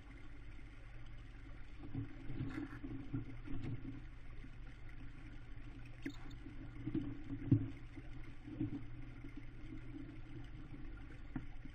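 Steady low hum from a nest-box camera microphone, with scuffles and soft thumps as an adult tawny owl shifts about in the nest box and brushes against the camera. The loudest bump comes about two thirds of the way through.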